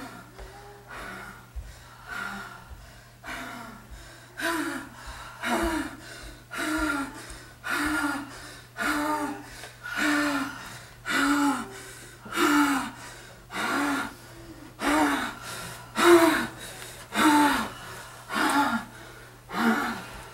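A person's voice making short, pitched vocal sounds over and over, each rising then falling in pitch, evenly about once a second, with breaths between them; they grow louder after the first few seconds. A steady low hum runs underneath.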